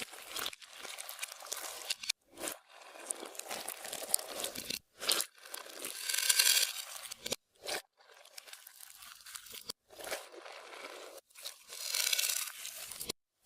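Clear slime being worked and mixed by hand, making irregular sticky squishing noises. It comes in short edited segments with abrupt cuts to silence, and there are two louder, brighter passages, one about halfway through and one near the end.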